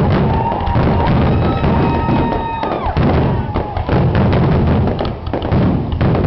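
Fireworks finale: aerial shells bursting in rapid, overlapping booms and crackles. A long, high, steady whistle rides over the barrage through the first half and bends down in pitch as it stops.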